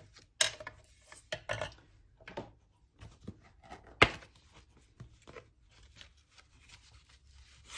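Craft tools being handled and set down on a desk, scissors and a plastic box among them: a scatter of light knocks and clicks, with one sharper knock about four seconds in.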